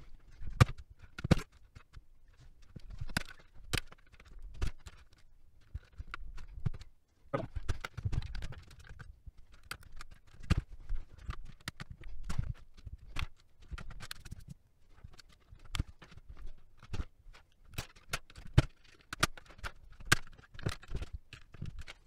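Outemu Red mechanical switches being pulled out of a hot-swap keyboard plate with a plastic switch puller. Irregular sharp clicks and snaps sound as the switches pop free, with knocks as they drop onto the desk.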